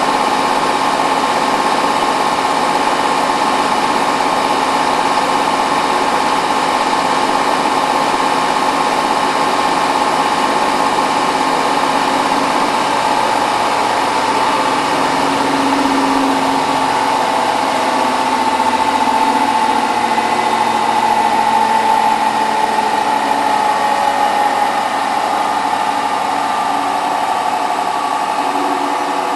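Hotpoint WT960 washing machine in its final fast spin: a loud, steady motor whine over the rush of the spinning drum, the pitch wavering slightly around the middle.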